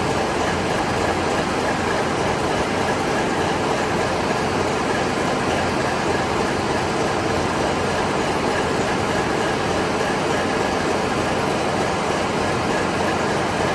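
Diesel machinery running in a tugboat's engine room: a loud, steady mechanical din with a low hum under it, with no change in speed.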